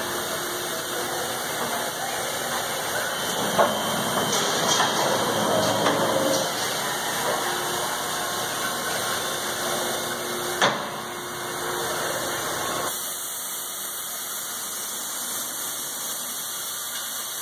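Steady running-machinery noise with a couple of sharp clicks. About thirteen seconds in, the lower part of the noise stops suddenly, leaving a steady hiss.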